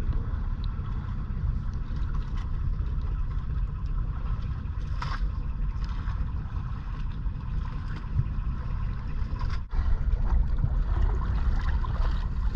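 Outrigger fishing boat's engine running steadily, a low rumble on the open sea.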